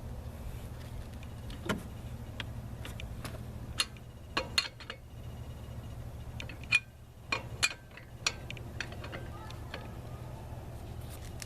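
Scattered metal clinks and knocks of a lug wrench on a car wheel's lug nuts as they are checked for tightness after a tyre change, over a steady low hum.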